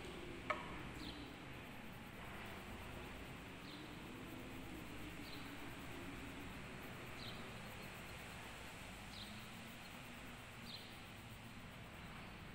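Quiet background with a bird chirping repeatedly: short, high chirps that fall in pitch, one every second or two. A single sharp click about half a second in.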